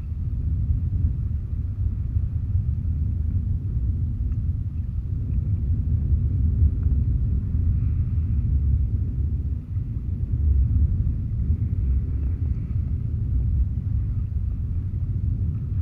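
Wind buffeting an action camera's microphone, a steady low rumble, with faint shallow sea water lapping.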